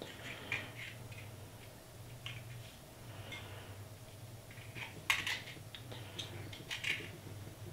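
Light clicks and short scrapes of metal calipers being slid and closed on the wall of a small 3D-printed test cube, the sharpest clicks about five and seven seconds in, over a steady low hum.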